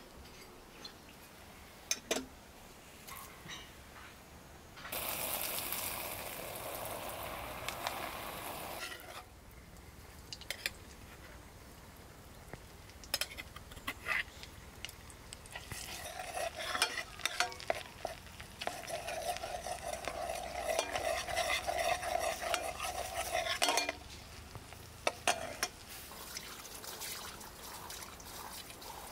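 Food frying in a pan, with a utensil stirring and clinking against it. The sizzle swells about five seconds in and again, louder, over the middle of the stretch, with many small knocks of the spoon.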